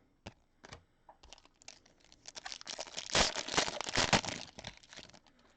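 A trading-card pack wrapper being torn open and crinkled: a few light clicks, then a dense, rapid crackling about two seconds in that peaks near the middle and dies away before the end.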